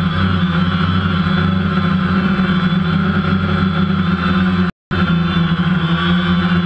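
DJI Phantom quadcopter in flight, its four electric motors and propellers giving a loud, steady hum heard close up from the camera mounted on the drone. The sound cuts out for a split second about two-thirds of the way through.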